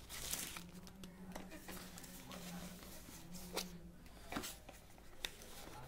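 Cardboard packaging being handled: a trimmer's inner box slid open, with light rustling and a few sharp clicks and knocks of card and plastic, over a steady low hum.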